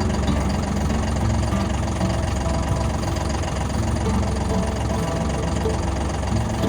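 An engine running steadily at an even pace.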